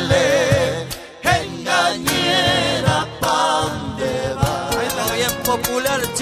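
Background music: a Spanish-language song with long, wavering sung notes over a steady beat.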